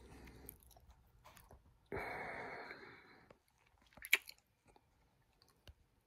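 Handling noise from a phone held close to its microphone: fingers rubbing on it in a rustle of about a second, two seconds in, then a few sharp taps and clicks about four seconds in.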